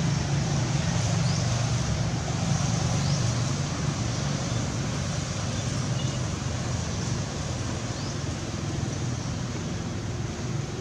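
Steady low motor-like hum over outdoor background noise, with a few faint high chirps.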